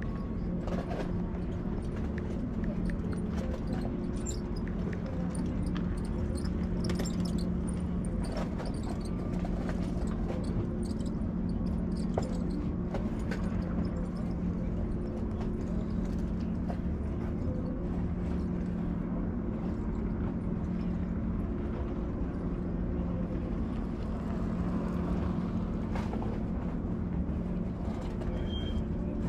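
A steady low mechanical hum, like a running engine or motor, with scattered light clicks and knocks.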